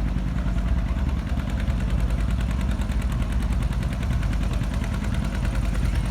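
John Deere 60 two-cylinder tractor engine running steadily under load, pulling the sled in low gear, its firing pulses coming fast and even.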